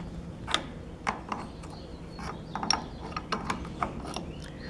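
Scattered metallic clicks and knocks of hand tools working on a band saw's blade guide bearings as they are being adjusted.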